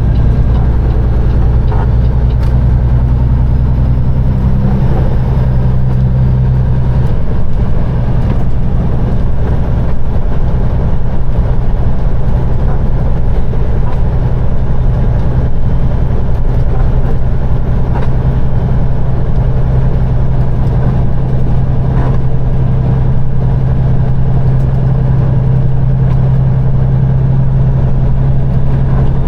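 Peterbilt 389 semi truck's diesel engine droning steadily, heard from inside the cab while driving; the engine note changes about seven seconds in.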